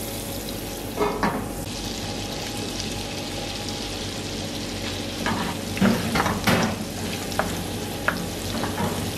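Butter and vegetable oil sizzling in a hot non-stick pan, with a brief louder burst about a second in. From about halfway, julienned beef frying with the scrapes and knocks of a wooden spoon stirring it.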